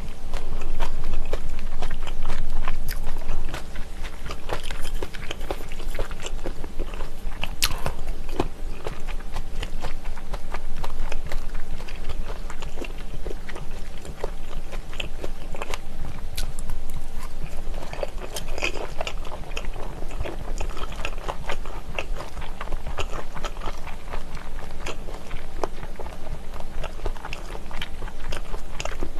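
Close-miked chewing and biting of spicy chicken-feet pyeonyuk (pressed, jellied boneless chicken feet): many short wet clicks and small crunches over a steady low hum.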